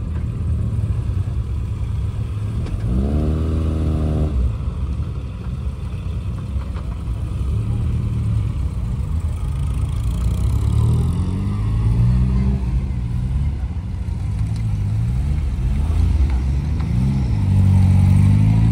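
Engines of small classic open-top sports cars, MG Midgets among them, running at low revs as they pull away one after another. One engine rises and holds briefly about three seconds in, and another revs up near the end.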